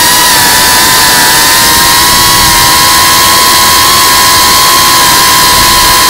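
GEPRC Cinelog35 FPV quadcopter's brushless motors and propellers, a steady high whine, heard close up from the onboard camera with loud wind rushing over the microphone.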